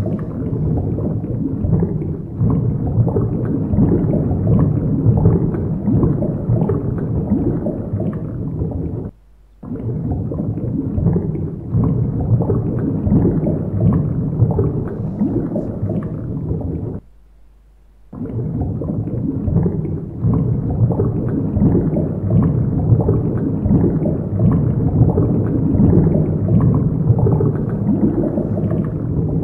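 Low, churning underwater gurgling and bubbling sound effect for a cartoon. It cuts out abruptly twice, briefly about nine seconds in and for about a second at around seventeen seconds.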